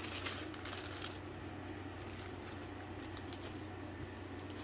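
Faint rustling and light ticks of a diamond painting canvas and its plastic cover film being handled and pressed flat, over a steady low hum.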